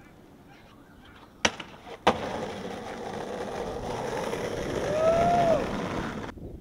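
Skateboard trick off a ledge: two sharp clacks of the board about half a second apart, then the wheels rolling on asphalt, growing louder, with a short rising-and-falling tone about five seconds in. The rolling cuts off suddenly near the end.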